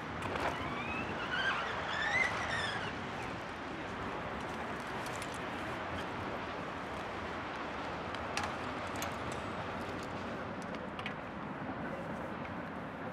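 Steady distant city traffic hum. In the first few seconds a brief siren-like wail rises and falls, and a few light clicks follow later.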